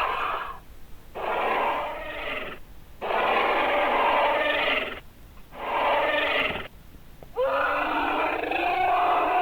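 Fictional moray eel creature sound effect: a series of growling roars, each one to two seconds long with short pauses between, five in all, the last the longest.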